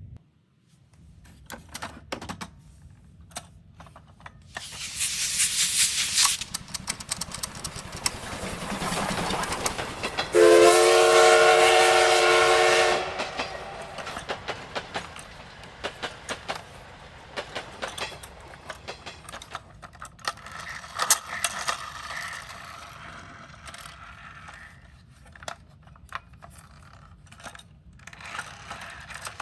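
Small toy cars clicking and clattering, with short bursts of hissing noise. The loudest sound is a steady, horn-like chord of several tones that lasts about two and a half seconds near the middle.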